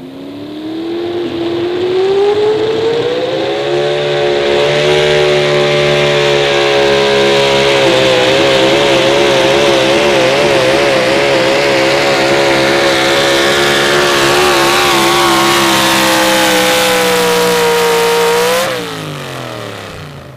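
Ford Pro Stock 4x4 pulling truck's engine at full throttle through a pull. The revs climb over the first few seconds and hold high, with the pitch wavering up and down in the middle as the truck bounces and its tires lose traction. Near the end the engine drops off sharply as the throttle shuts and fades away.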